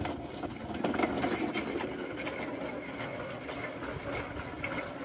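Small narrow-gauge wagon being hand-pushed along light track, its metal wheels rolling on the rails with a steady rattle and quick clicks.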